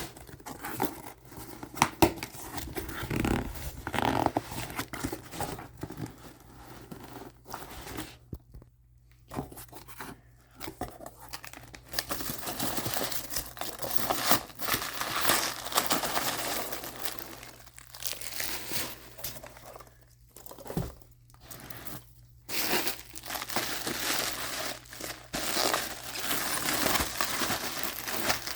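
Packaging being torn open and crumpled by hand as a parcel is unpacked: irregular crinkling and tearing with a few short pauses.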